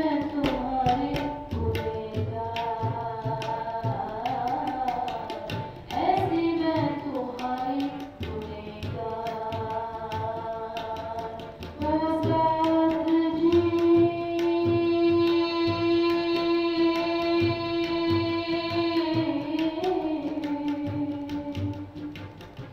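A woman singing a Hindi devotional song (bhajan) over a steady drum beat, gliding between notes and holding one long note for several seconds in the second half.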